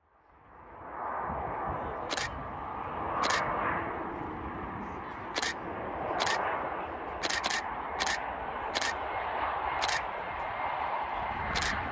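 Canon EOS 700D DSLR shutter firing about ten single frames at uneven intervals, roughly a second apart and twice in quick succession, over a steady outdoor rumble and hiss that fades in during the first second.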